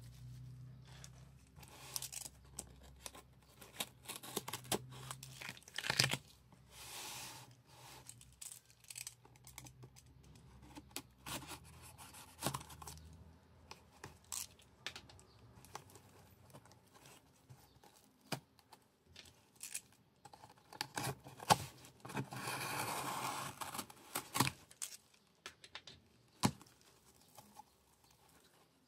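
A tape-sealed cardboard shipping box being handled and opened with gloved hands: scattered taps and scratches on the cardboard, packing tape cut with scissors, and a tearing sound lasting about two and a half seconds about three-quarters of the way through as the tape and flaps come open.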